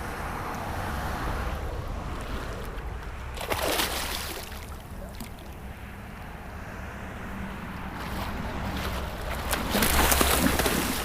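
Water sloshing and splashing at the side of a kayak, with wind buffeting the microphone. There are two louder rushes of splashing, one about three and a half seconds in and a bigger one near the end.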